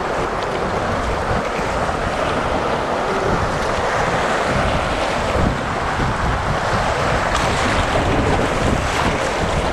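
Steady rushing of whitewater through a class II rapid as an inflatable kayak runs the waves, with wind buffeting the microphone.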